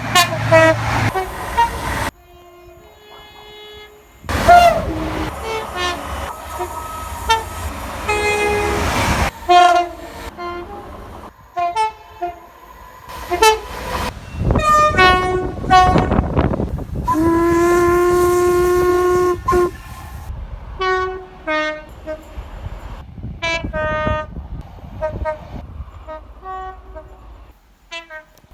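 Train horns sounding in a run of short blasts and one long held note about 17 seconds in, with train running noise between some of the blasts. The sound changes abruptly several times where separate clips are cut together.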